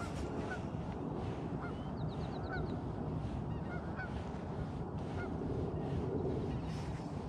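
Geese honking: many short calls repeating about twice a second, over a steady low rumble.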